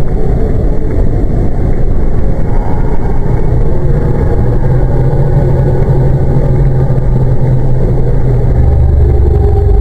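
A loud, steady low rumble with a low hum in it that grows stronger partway through and deepens near the end.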